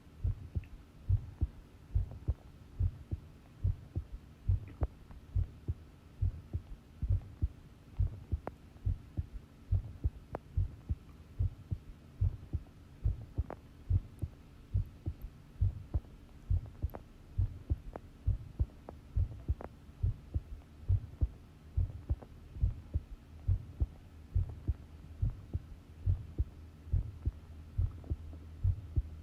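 Human heartbeat recorded close up: a steady, even rhythm of low thumps, with a low hum coming in near the end.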